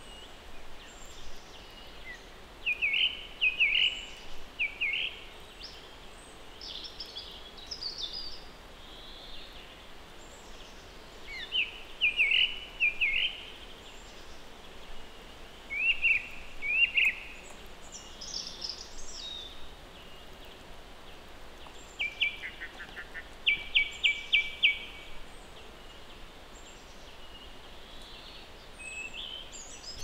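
Wild songbirds singing: short phrases of high chirps every few seconds over a faint steady outdoor background, with a rapid, even trill of repeated notes about two-thirds of the way through.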